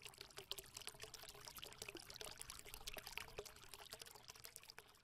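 Faint trickling water: a quiet, irregular patter of small drips and splashes.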